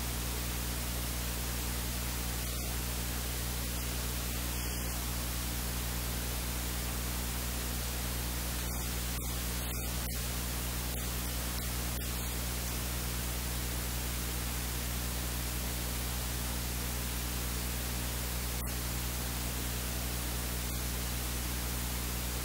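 Steady hiss of recording noise with a low electrical hum underneath; no sounds of the spooning or plating stand out.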